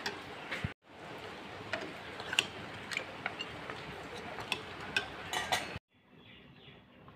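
A steel spoon stirring thick curry in an aluminium pressure cooker, clinking and scraping against the pot wall many times. Near the end this stops and gives way to a faint steady hiss.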